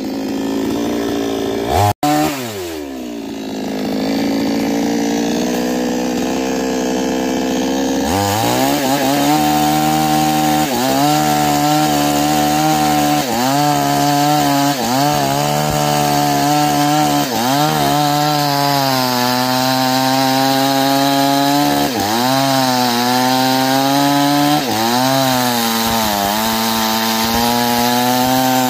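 Two-stroke Newwest chainsaw with a 22-inch bar cutting through a thick sonokeling (Indian rosewood) trunk. The engine runs at high revs, and from a few seconds in its pitch repeatedly dips and recovers every second or two as the chain bogs under load in the cut.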